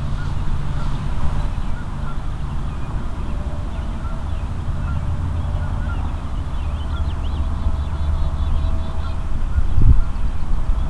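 Steady low wind rumble on a trail camera's microphone, with distant bird calls scattered through it and a brief low thump near the end.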